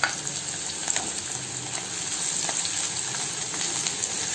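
Chopped onions sizzling steadily as they fry in hot cooking oil in a non-stick wok, with a few light ticks and scrapes from a spatula stirring them.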